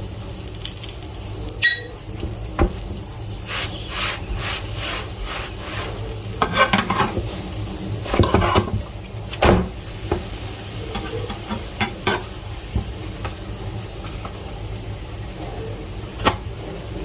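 Chapatis frying in an oiled pan, a steady sizzle broken by repeated scrapes and taps of a utensil against the pan as they are turned.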